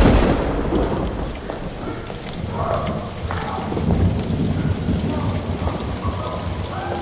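Storm ambience: steady heavy rain with low rumbling thunder underneath.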